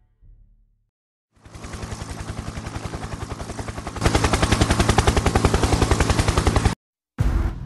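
Rapid, evenly spaced pulses of a dubbed film sound effect, roughly ten a second, starting after a second and a half of near silence. They get louder about four seconds in and cut off suddenly near the end, then resume briefly.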